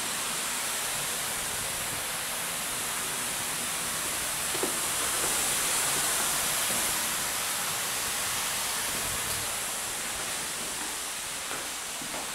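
Steady, even hiss with no speech, with a faint knock about halfway through and a few small knocks near the end.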